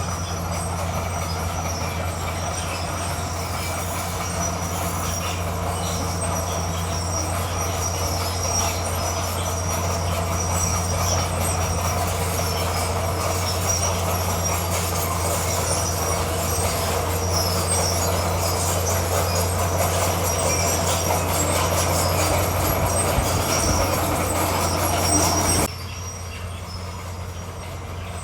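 Bulldozer working: its diesel engine running steadily under load while its steel tracks clank and squeal. The sound drops suddenly near the end.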